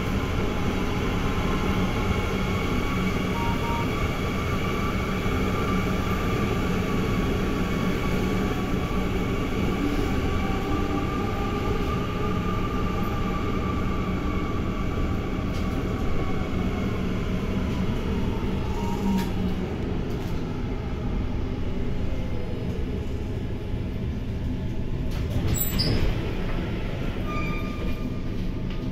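Inside a GTL8 articulated tram under way: steady rumble of wheels on rail with a motor whine that rises in pitch as the tram gathers speed, then falls as it slows. There is a sharp knock near the end.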